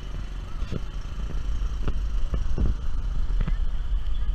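A car driving slowly on a dirt road, heard from a camera on its bonnet: a low, fluctuating rumble with scattered knocks and clatters.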